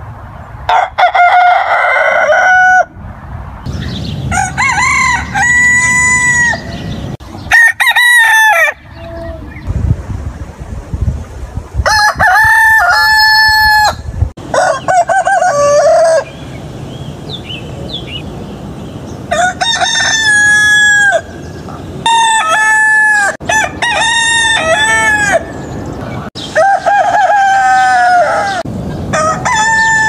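Domestic chickens calling loudly again and again: drawn-out calls, many holding a steady note before dropping off, coming in bunches with short lulls between.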